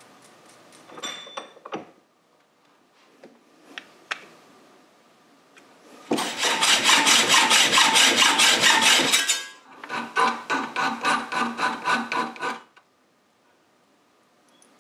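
A hand saw or file rasping across threaded metal rod in quick back-and-forth strokes, in two runs: the first about three seconds long, then, after a brief pause, a slightly shorter second run. A few light clicks come before them.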